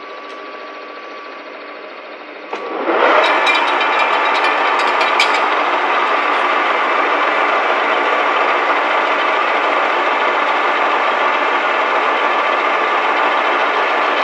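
Metal-turning lathe: a lower steady hum, then about two and a half seconds in the spindle is engaged and the chuck spins up, with a few clicks as it gets going. The headstock gearing then runs loud and steady with a whine.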